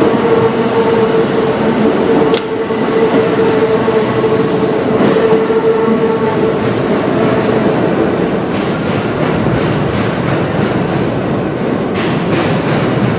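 Kintetsu 21000 series Urban Liner Plus express train pulling out and running off into the tunnel: a steady whine over the rumble of its wheels for the first half, then a fainter rumble. There is a sharp click a couple of seconds in and a cluster of clacks from wheels crossing rail joints near the end.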